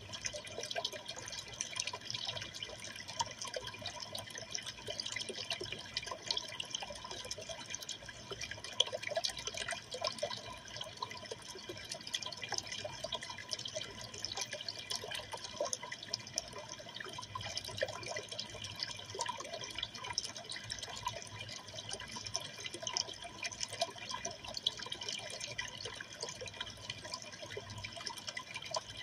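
Running water in a freshwater aquarium: a steady stream of small splashes and drips.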